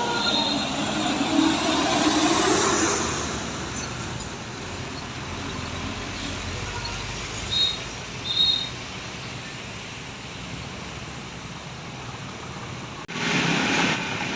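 Road traffic going by, with a large vehicle passing loudly in the first few seconds. Two short high beeps come about halfway through, and near the end a sudden louder rush of passing-vehicle noise begins.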